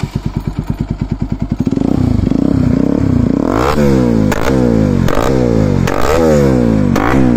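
Bajaj Pulsar NS200 single-cylinder engine with an aftermarket Akrapovic-copy exhaust. It fires up into a fast pulsing idle for under two seconds, then is revved loudly in repeated blips about once a second. Each blip ends in a sharp pop as the revs fall: the afterfire the owner calls flame shots.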